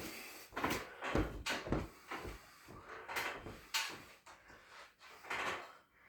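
A string of soft, irregular knocks and thumps, about a dozen in six seconds, much quieter than a full kick on the heavy bag.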